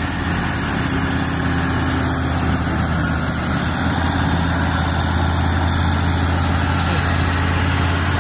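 Heavy logging truck's diesel engine running steadily with a low drone as it hauls a load of logs. The engine is labouring: the truck is overloaded beyond its engine's capacity to pull the load.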